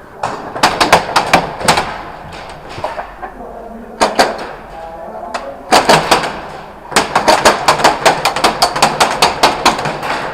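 Airsoft guns firing: a scattered handful of sharp shots in the first two seconds, a single shot about four seconds in, a short quick cluster near six seconds, then a fast steady string of shots, about four or five a second, through the last three seconds.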